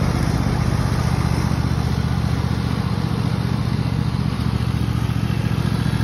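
Cub Cadet riding lawn mower engine running steadily as the mower drives across the lawn, growing slightly fainter as it moves away.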